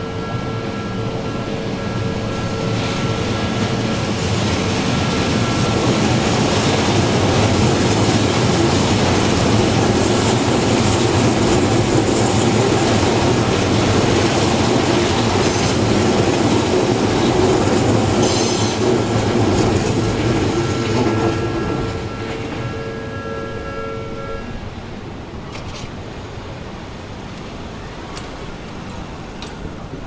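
Japanese level-crossing warning bell ringing in a steady repeating two-tone pattern as an Odakyu Line train passes over the crossing. The train's wheels on the rails build to a loud rumble with a couple of short wheel squeals, then fade. The bell stops about three-quarters of the way through, leaving road traffic.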